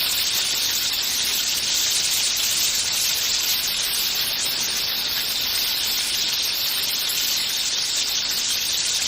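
Onion pakoda fritters deep-frying in hot oil: a steady sizzle.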